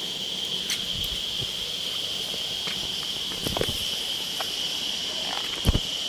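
Insects droning steadily at one high pitch, with a few scattered footsteps and knocks on rock, the loudest near the end.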